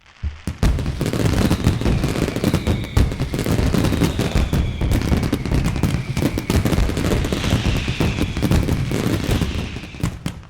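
Fireworks sound effect: a dense, rapid crackle of bangs and pops with several falling whistles above it, cutting off near the end.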